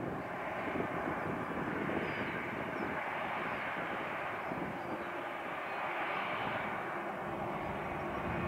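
Airbus A319-111's CFM56 turbofan engines running steadily as the airliner taxis: an even jet noise with no rise in thrust.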